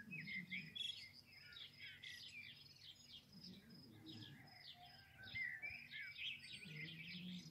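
Many small birds chirping and twittering in a dense, continuous chorus of quick high chirps, faint, over a low steady hum.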